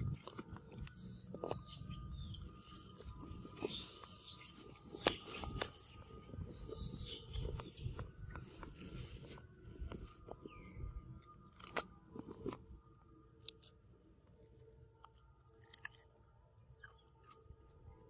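A macaque chewing and biting a raw cucumber close up, with crisp crunching bites.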